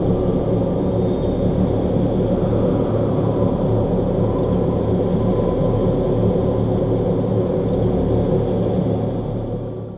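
A loud, steady low rumble with a droning hum, like an engine or a jet, that fades out near the end.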